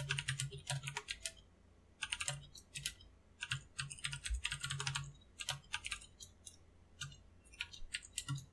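Computer keyboard typing in quick bursts of keystrokes, with short pauses between bursts.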